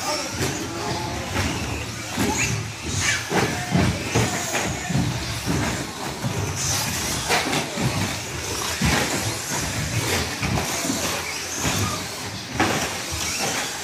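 Several two-wheel-drive short-course RC trucks racing on a carpet track: a continuous hiss and whine of their electric motors and tyres, broken by frequent knocks and clatter.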